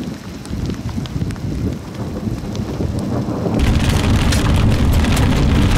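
Wind rumbling on the microphone with scattered raindrop ticks. About three and a half seconds in, it switches abruptly to heavy rain striking a vehicle's windshield and roof, heard from inside the vehicle as a dense, loud hiss of drops.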